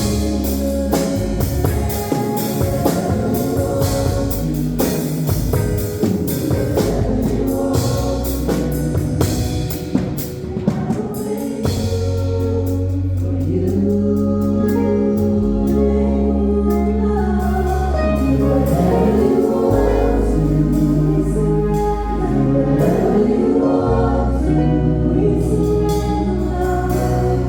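A worship band playing a gospel song with several singers: drum hits in the first half, then long held bass notes under the singers in the second half.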